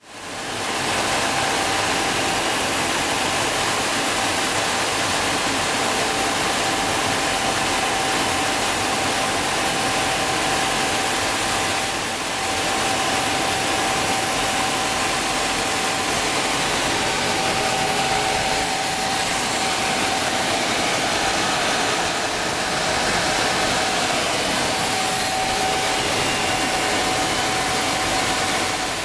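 Steady noise of an L-39 Albatros jet trainer in flight, heard inside the cockpit: its single turbofan engine and rushing air, with a steady high whine running through it. It fades in at the start.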